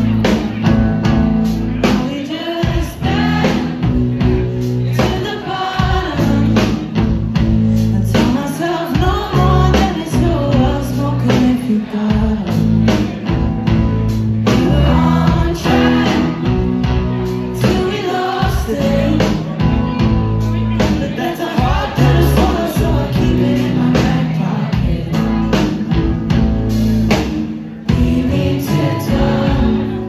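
A live band playing a song: electric guitars and a drum kit under singing voices.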